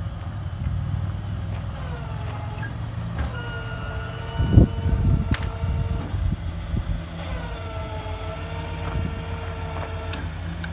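A GMC C4500 Kodiak's 8.1-litre Vortec V8 running steadily while the VersaLift boom's hydraulics whine in stretches of two to three seconds as the bucket is moved; each whine dips in pitch as it starts, then holds. A loud thump comes about four and a half seconds in.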